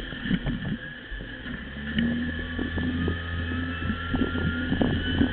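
Side-by-side UTV engine droning steadily while driving a rough dirt trail, its note firming up and slowly rising from about two seconds in. Frequent short knocks and rattles as the vehicle goes over bumps.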